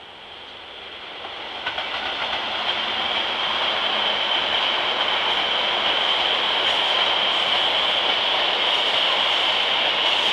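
Italian railway train approaching and passing close by: the rumble of wheels on the rails grows louder over the first few seconds, then stays steady and loud, with a high steady tone riding over it.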